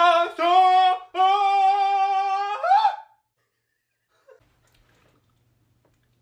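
A person's voice making a loud, steady, high held note, broken into three stretches, the last ending in a short upward swoop, about three seconds in all.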